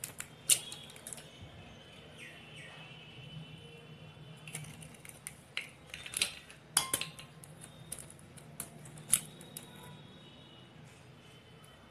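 Eggs tapped against a glass and cracked open: a series of sharp clicks of eggshell on glass, the loudest about half a second in, with more taps around six to seven seconds and near nine seconds.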